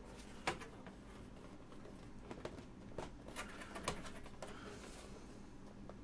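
Scattered clicks and light knocks of hands working at the plastic front drive-bay cover of a computer case, feeling for how it comes off. One sharp knock about half a second in is the loudest.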